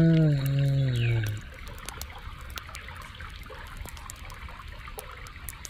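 A man's drawn-out voice, falling in pitch, fades out about a second and a half in; after it, a faint steady trickle of river water over rocks with scattered small ticks.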